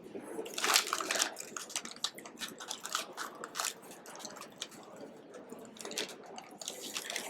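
Close-up chewing and crunching of spicy cheese curls: irregular crisp crunches with wet mouth sounds, loudest about a second in and then softer.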